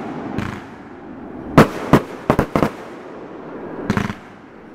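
Backyard consumer aerial fireworks bursting overhead in a volley of sharp bangs: a faint report early on, then four loud ones in quick succession about a second and a half in, and a weaker burst near the end.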